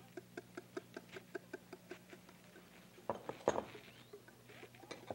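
Wire whisk beating eggs and cream in a glass bowl, its wires clicking against the glass about five times a second, with a few louder knocks about three seconds in.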